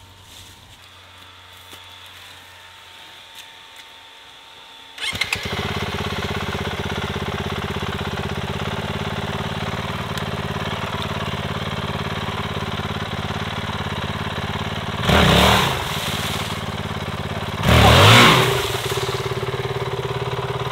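Honda CRF450L's single-cylinder four-stroke engine starts about five seconds in, catching at once and settling into a steady idle. Near the end it is revved twice in short blips.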